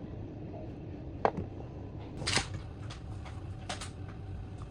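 Small objects being handled on a phone-repair bench: a sharp click about a second in, a short scrape a little after two seconds, then a few lighter clicks, over a steady low hum.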